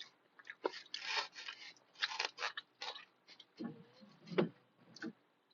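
Eating noises from a person chewing food close to the microphone: a run of short, irregular mouth and chewing sounds.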